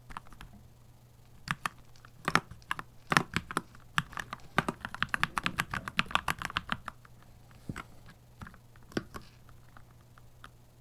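Keychron C2 Pro 8K mechanical keyboard being typed on. A few separate keystrokes come first, then a quick run of typing around the middle, then scattered single keys near the end.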